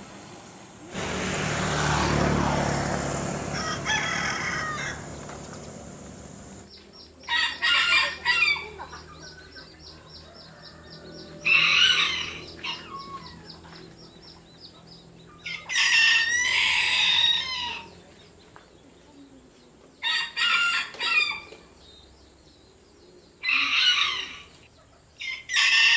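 Roosters crowing in turn, answering each other, with about six separate crows spaced roughly four seconds apart. In the first few seconds a loud rushing noise that falls in pitch covers the scene, with one crow heard through it.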